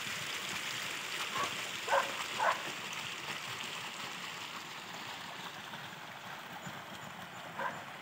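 Outdoor ambience: a steady hiss with a few short, distant animal calls, three close together in the first few seconds and one more near the end.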